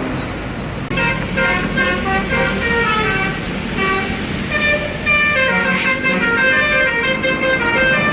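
Bus basuri horn, a multi-note musical horn, playing a fast tune of short separate notes that starts about a second in.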